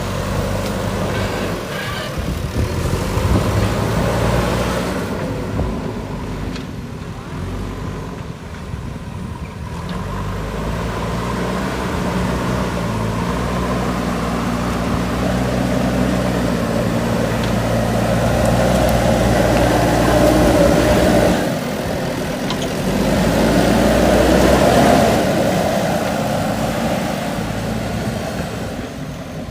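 JCB 3DX backhoe loader's diesel engine running hard as the machine works, its pitch and loudness rising and falling, with two stronger surges in the second half and a short drop between them.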